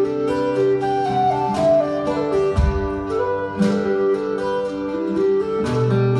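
Live Scottish folk tune: a low whistle plays the melody, sliding between notes, over rhythmically strummed acoustic guitar.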